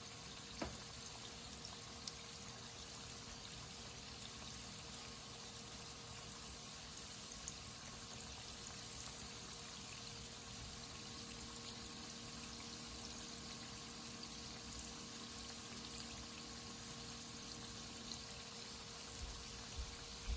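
Filo-pastry briouates deep-frying in hot oil: a steady, soft sizzle with a few small pops.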